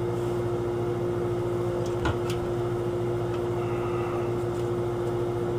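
Steady mechanical hum with a constant tone, with a couple of faint clicks about two seconds in as the wires are handled.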